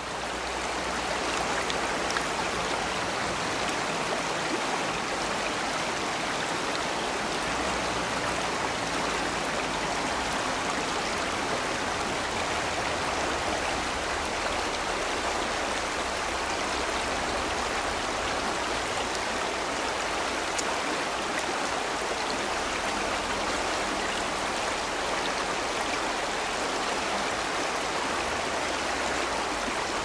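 Shallow, fast mountain river running over a stony bed: a steady rush of water.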